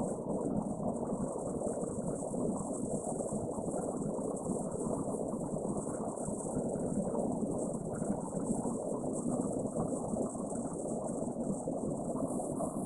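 Steady rushing of a rocky mountain stream, with a continuous high-pitched chorus of autumn insects (crickets) over it.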